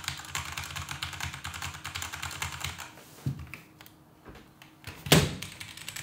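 Rapid typing on a 65% mechanical keyboard with stock, non-silent Cherry MX Red linear switches and smooth ABS keycaps: a dense run of key clacks that stops about three seconds in. A single loud knock on the desk follows about five seconds in, as a second keyboard is set down.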